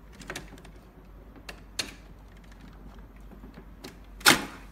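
Small clicks and scrapes of the metal buckle and driven shaft of an RBP-9000 blood pressure monitor's cuff mechanism being forced by hand, with one loud snap about four seconds in as the shaft is pushed down.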